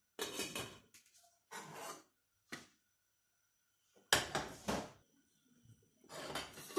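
Stainless steel pots and lids being handled on a gas stove: a lid set on a pot, then a pot scraped and set down on the burner grate, in about five short scraping and clattering noises, the loudest a little past the middle.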